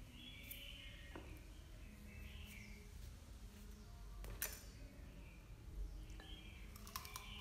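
A small blade scraping the skin off a cucumber in short strokes, with a sharp click about four seconds in.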